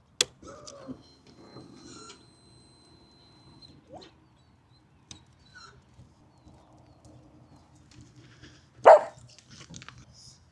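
A dog in the room whimpers briefly near the start and gives one loud bark about nine seconds in, with a sharp click just after the start and a few scattered small clicks over a faint low hum.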